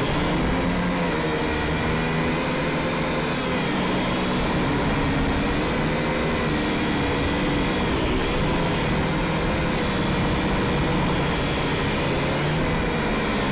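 Syma X5SC quadcopter's small electric motors and propellers whining steadily in flight, their pitch rising and falling as the throttle changes, over a rough rumble of wind on the microphone.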